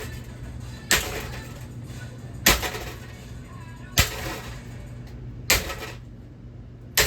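A ceiling fan being smashed with repeated hard blows, about one every second and a half: five sharp bangs, each with a short ringing tail.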